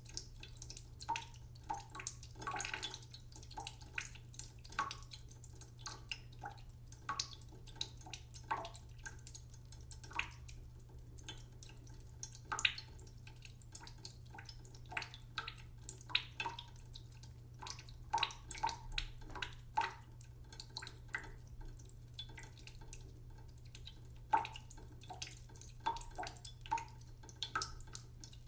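Water dripping and trickling slowly from a tap into a cooking pot in a sink, in irregular plops with a short, hollow ring, over a steady low hum.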